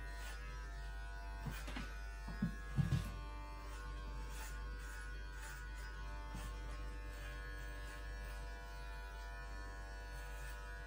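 Electric hair clippers running with a steady buzz, with a few short knocks about two to three seconds in.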